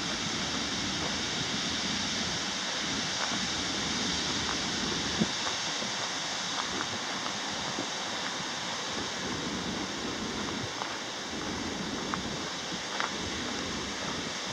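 Steady outdoor hiss of wind and flowing water, with a few faint clicks.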